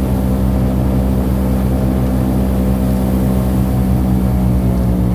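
Airboat engine and air propeller running steadily at cruising speed: a loud, constant drone that holds the same pitch.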